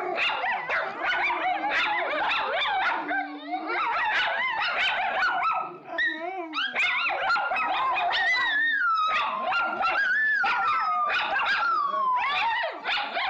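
Several miniature schnauzers barking and yipping at once in a dense, overlapping chorus. From about eight seconds in, one long high cry falling slowly in pitch rises above the barks.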